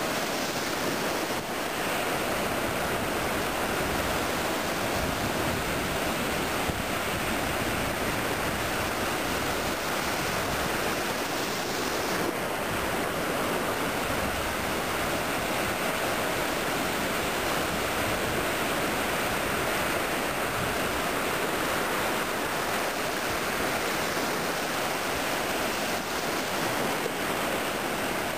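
Ocean surf washing and breaking in the shallows, a steady even rush of water.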